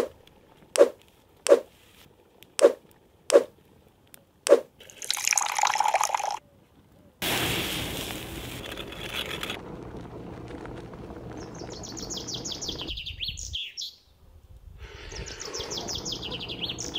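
Six sharp knocks over the first few seconds, then the steady hiss of the wood fire and the goulash simmering in the cast-iron cauldron. Songbirds chime in with quick runs of falling chirps, twice in the second half.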